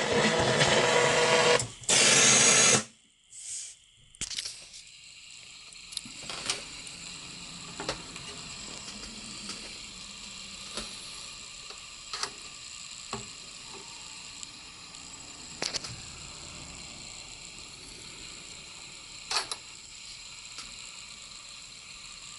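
Stylus of a Technics SL-BD20 turntable riding the lead-in groove of a vinyl record: faint steady surface hiss with scattered clicks and pops. At the start, louder radio-type audio plays, then cuts off about three seconds in.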